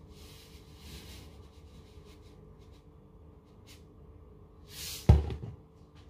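Salt poured from a shaker with a faint hiss, a few small ticks, then a single loud knock about five seconds in.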